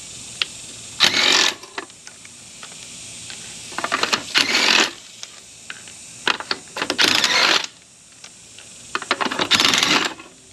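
Cordless impact driver spinning off truck lug nuts that were already broken loose with a breaker bar: four short runs of the tool, each well under a second, with small metal clinks between them as the nuts come off.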